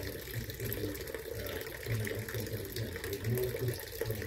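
Garden water fountain running, a steady trickle and splash of falling water.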